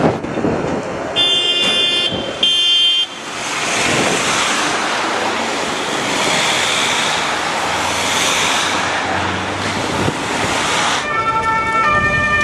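Vehicle horn sounded twice, a blast of about a second and a shorter one, followed by several seconds of steady rushing noise. Near the end a police van's two-tone siren starts up, alternating between two pitches.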